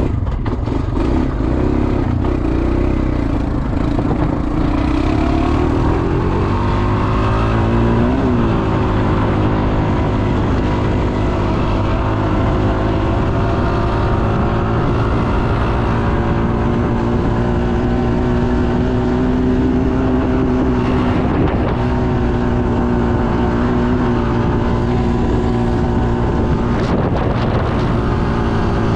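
Honda motorcycle engine running under way. Its pitch climbs over the first several seconds, dips and recovers sharply about eight seconds in, then holds steady.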